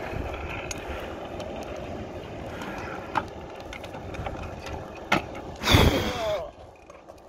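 Stunt scooter wheels rolling steadily over rough asphalt with a few light clicks, then a sharp knock about five seconds in and a loud half-second scrape just before six seconds, after which the rolling stops.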